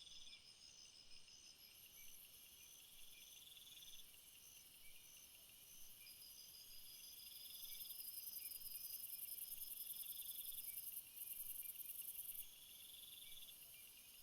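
Faint night-time jungle chorus of crickets and other insects: a high, continuous trilling that grows louder in the second half with a brief break, evenly repeated chirps, and a lower pulsing trill that comes and goes in bouts of a second or two.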